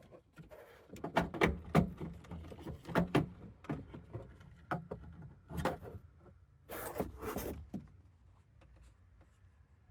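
Irregular knocks, clicks and a brief rasp of car-interior parts being handled: hard plastic trim, seat and seat-belt hardware.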